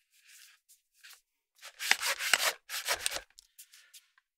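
Aluminium sections of a Neewer NW-088 telescoping boom pole rubbing and scraping against each other as they are slid together, in two scraping strokes about two and three seconds in, with a few faint ticks around them. The internal coiled cable is jammed inside, so the pole will not compress all the way down.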